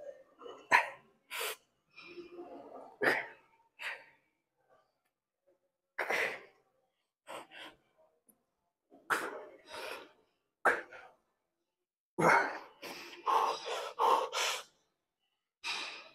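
A man's short, forceful breaths and exhales of effort, heard close on a clip-on microphone, while he strains through a set of forearm curls. They come in irregular bursts with silent gaps, clustering more tightly near the end.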